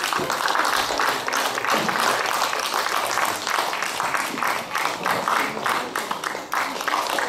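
An audience applauding: many hands clapping steadily for several seconds.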